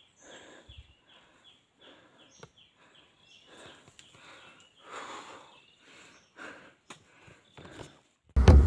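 A hiker's breathing and steps on a wet, rocky trail, soft repeated puffs about one a second. Near the end, loud music with deep drum beats cuts in suddenly.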